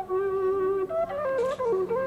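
Gourd wind instrument being blown: a slow melody of held notes that step up and down in pitch, with a short breathy hiss about one and a half seconds in.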